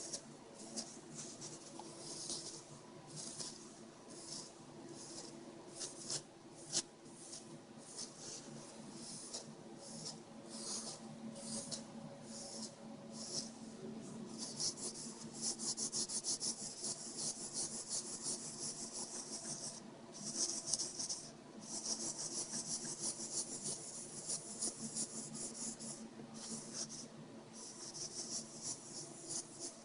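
Tissue rubbing back and forth over a GPS's LCD screen to wipe off fingerprints. The strokes are short and separate at first, then come fast and almost continuous for most of the second half. A faint steady hum sits underneath.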